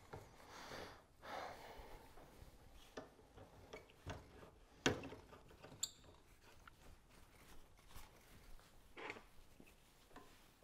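Faint handling noise from a compound bow being adjusted at its arrow rest: soft rustling in the first two seconds, then scattered small clicks, the sharpest about five seconds in.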